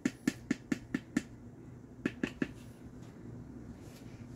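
Spatula knocking against a plastic container while scraping out soft ice cream: a quick run of sharp clicks, about five a second, then three more about two seconds in.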